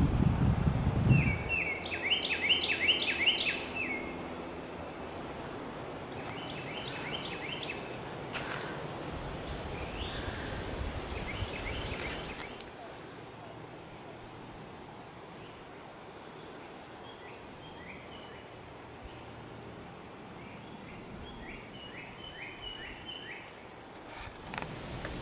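Woodland ambience: songbirds calling in short repeated phrases of quick notes, the loudest phrase a few seconds in. From about halfway an insect adds a high, evenly pulsing buzz. A low rumble fills the first second or so.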